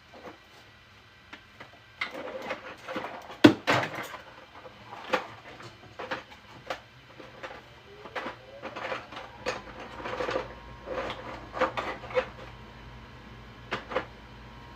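Irregular plastic clicks and knocks of things being handled, the loudest about three and a half seconds in, over a 3D printer at work. From about the middle, the printer's motors give a pitched whine that glides and then holds steady.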